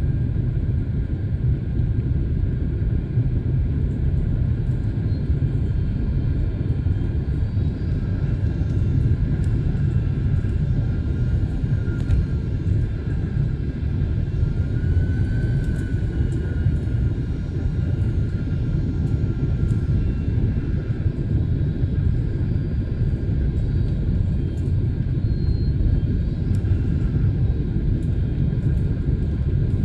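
Steady airliner cabin noise in flight: a dense low rumble of engines and airflow, with a faint whine that drifts slightly in pitch around the middle and a few small rattles.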